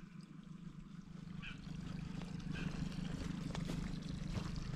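Footsteps crunching on twigs and leaf litter along a wet, muddy bank, growing louder from about halfway. A few short high chirps come in the first half, over a steady low rumble.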